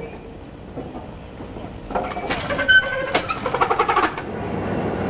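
Steam locomotive tender moving on a railroad turntable: a cluster of sharp metal clanks with ringing squeals for about two seconds in the middle, then a steady rumble.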